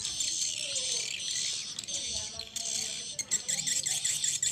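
Swiftlet lure call played through the two horn tweeters of a Piro MW-88 swiftlet-house amplifier: dense, high twittering and chirping of edible-nest swiftlet calls, used to draw swiftlets into a bird house.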